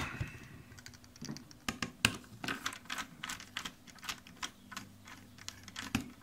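A small screwdriver working the tiny retaining screw of an M.2 SSD on a mini PC's motherboard. It makes a run of light, irregular clicks that start about a second and a half in.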